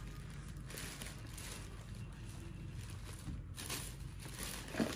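Soft, intermittent rustling of plastic carrier bags and plastic-wrapped food containers being handled.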